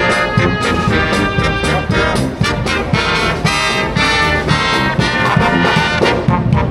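Brass music, trombones and trumpets playing a bright tune over a steady beat.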